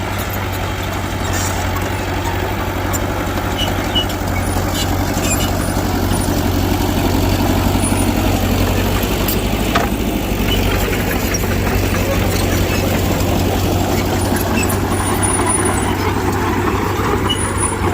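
Mitsubishi BD2G bulldozer's diesel engine running steadily while it works, with a few scattered clinks.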